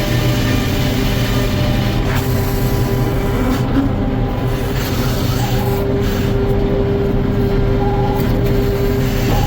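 Sawmill running steadily: a constant mechanical drone with a held tone that grows stronger about halfway through.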